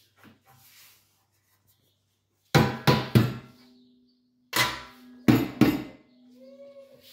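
Kitchenware being handled at a stainless steel sink: two bursts of sharp clattering knocks, about three each, with a low ringing tone hanging on after them.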